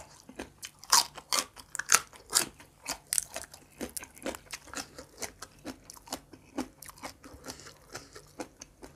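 Crisp crunching as a raw water spinach (morning glory) stalk is bitten and chewed: a quick, irregular run of snaps, loudest in the first few seconds.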